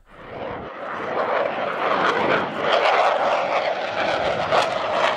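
Jet engine noise of an F/A-18 Hornet's twin engines as it flies past, swelling over the first couple of seconds and then holding as a steady rushing roar.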